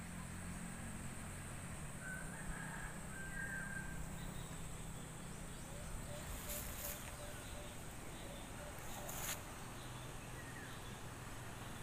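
Rural outdoor ambience: scattered bird calls, a few short chirps and a quick run of repeated notes, over a steady high thin whine and a low steady hum.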